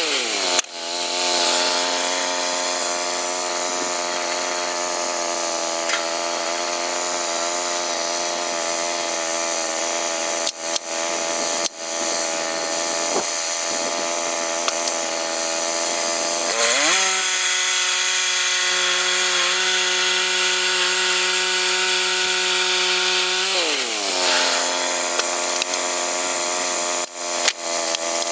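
A chainsaw running at high, steady revs, cutting through a pine log during milling. The revs climb a little about seventeen seconds in and drop back about seven seconds later, with a few short sharp breaks in the sound along the way.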